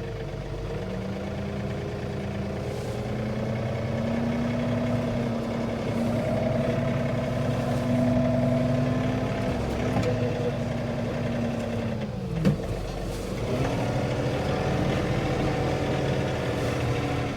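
An engine running at fairly high revs, its pitch slowly rising. About twelve seconds in the pitch drops sharply with a click, then climbs back up.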